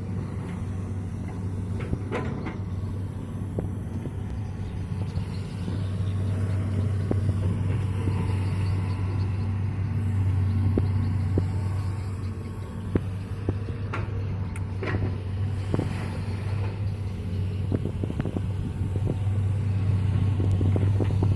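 Long-arm excavator's diesel engine running steadily with a low hum, growing a little louder at times, and a few sharp knocks.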